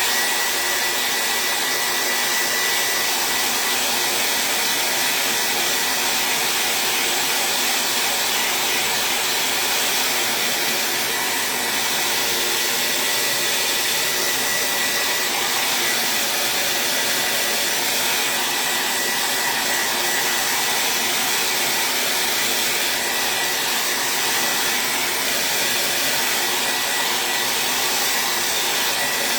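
Handheld blow dryer switched on and running steadily on high, loud, with a thin steady whine over the rush of air.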